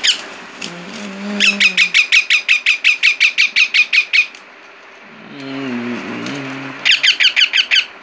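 Rose-ringed parakeet squawking in a fast run, about seven calls a second, each call sliding down in pitch. The run lasts nearly three seconds, and a shorter burst comes near the end. Low sung notes from a background song are heard between the runs.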